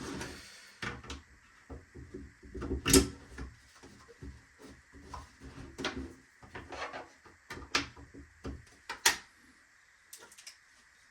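Hard plastic 3D-printed parts being handled and worked: a string of irregular clicks, knocks and short scrapes, with sharper knocks about three seconds in and again near nine seconds, consistent with support material being picked and snapped out of the print.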